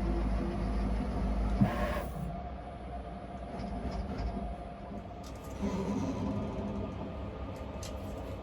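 Optimill F80 CNC milling machine running: a low hum with steady whining tones. About two seconds in there is a sharp click and a short hiss, after which the low hum drops away.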